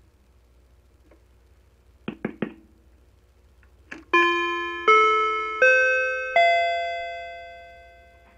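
A few clicks from front-panel buttons on a small PA amplifier, then its built-in chime through the speakers: four ringing notes, mostly rising in pitch, the last fading out over about two seconds.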